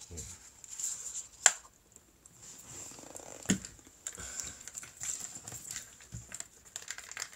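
Close-up handling noise: rustling with two sharp taps, about a second and a half and three and a half seconds in, the first the louder.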